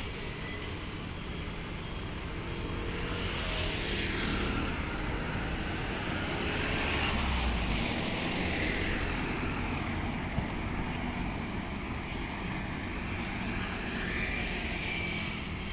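Street traffic on a wide city road: steady traffic noise, with a vehicle passing that grows louder from about three seconds in and fades away after about nine seconds.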